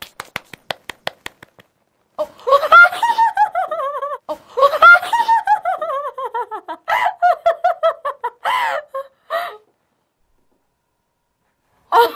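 A quick run of about ten flat-palmed 'seal claps', followed by several seconds of high-pitched female laughter in falling peals that breaks off abruptly.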